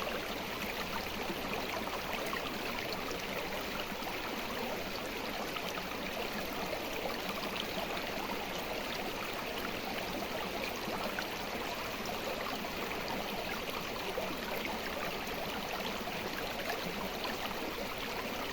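River water flowing steadily, an even rushing with fine bubbling and splashing.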